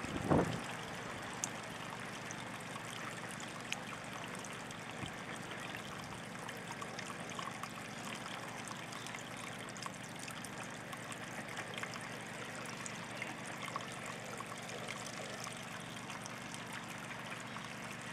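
Steady trickling of running water in a small stream, with a single thump just after the start and a few faint clicks.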